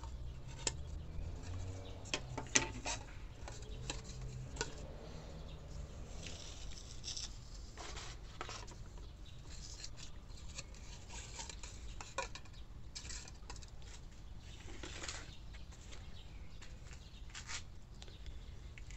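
Utility knife scraping and cutting through the bottoms of thin plastic cups, with scattered light clicks and taps as the cups are handled and set down on a stone countertop.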